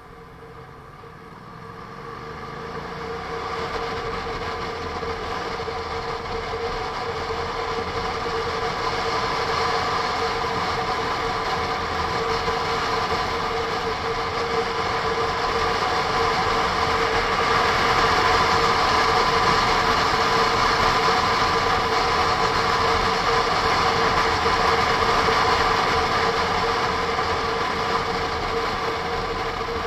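Honda NC750S DCT motorcycle's parallel-twin engine pulling away with rising pitch over the first few seconds, then a steady rush of wind and engine noise at road speed that grows louder through the first half and eases slightly near the end.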